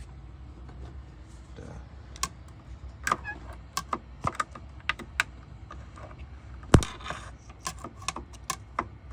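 Irregular small metallic clicks and taps of hand tools working at the little clip ring on the steering column, with one sharper, louder click about seven seconds in.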